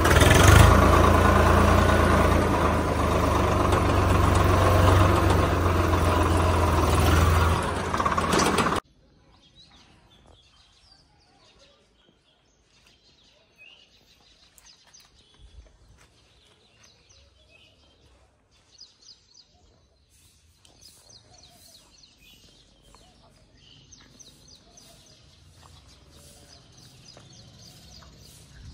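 Diesel tractor engine running loudly, heard from the driver's seat, cutting off suddenly about nine seconds in. After that, only a faint outdoor background with occasional small chirps.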